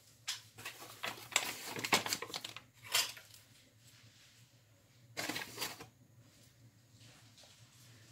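Short scraping and rustling sounds of kitchen handling, several in the first three seconds and another around five seconds in, as flour is scooped out and tipped into a glass mixing bowl.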